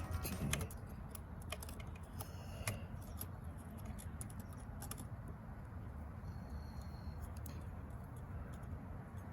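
Sparse light clicks and taps of small metal transmission parts being handled and fitted, over a low steady hum.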